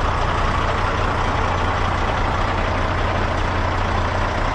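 Truck engine idling steadily, a constant low hum under an even rumbling noise.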